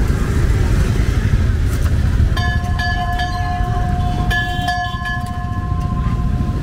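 Street traffic rumble, with a vehicle horn sounding one long, steady two-tone blast starting about two seconds in.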